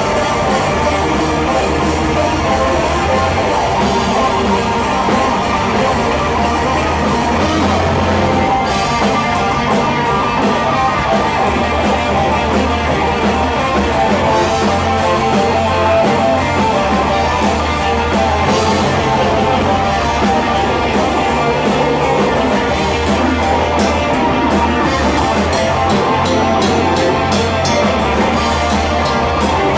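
Death metal band playing live: distorted electric guitar and bass riffing over fast, dense drumming, with the low notes shifting every second or two.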